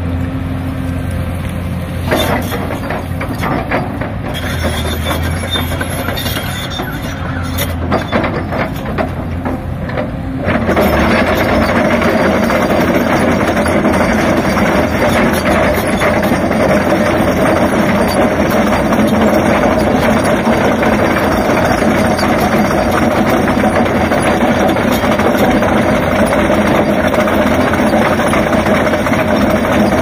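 A Hyundai 480 excavator's rock trencher attachment, its rotating cutter head grinding into stony ground, with the machine's engine running under it. About ten seconds in, the sound steps up abruptly to a louder, harsher grinding and stays steady.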